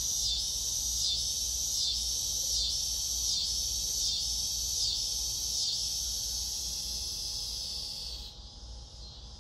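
Outdoor chorus of insects: a loud, continuous, high-pitched buzzing that throbs in a steady rhythm a little more than once a second, then drops to a much fainter level about eight seconds in.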